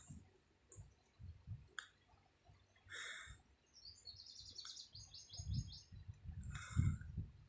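A sleeping woman snoring: soft low snores with breathy hisses, the loudest about seven seconds in. Through the middle comes a short, rapid, high-pitched chirping trill.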